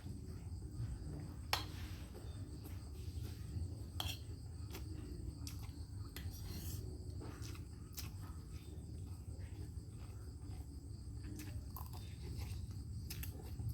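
Steady insect chirping in high thin tones, with scattered sharp clicks and taps throughout.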